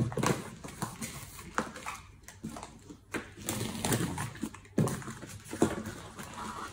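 Hands handling a large cardboard shipping box: irregular knocks and scraping against the cardboard, with a sharp knock at the start and two more a little before the end.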